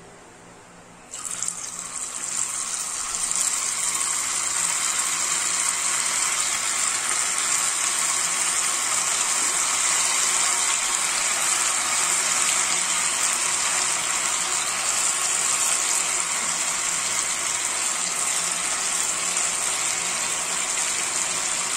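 Marinated beef pieces deep-frying in hot oil in a kadai: a sizzle breaks out suddenly about a second in as the meat goes into the oil, builds over the next couple of seconds, then holds as a steady loud bubbling sizzle.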